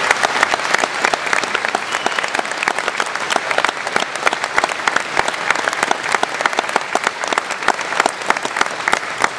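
Audience applauding: many people clapping at once, dense and steady, with some sharper claps close by.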